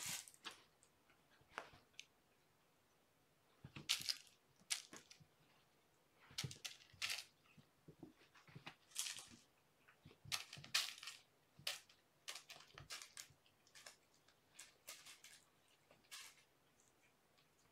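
Cats moving and playing: irregular short scratchy rustles and crunches, a dozen or so, with quiet between them.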